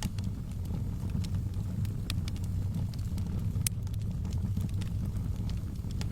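Wood fire crackling in a fireplace: scattered sharp pops and snaps over a steady low rumble, with one louder pop a little past the middle.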